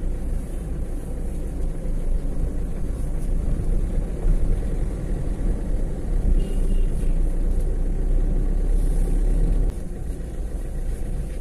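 Steady low rumble of a moving road vehicle, engine and road noise together. It drops to a softer level near the end as the vehicle slows.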